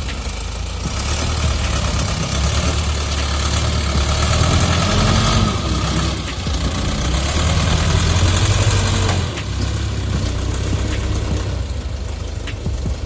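T-40AM tractor's diesel engine running, louder from about a second in and dropping back at around nine seconds.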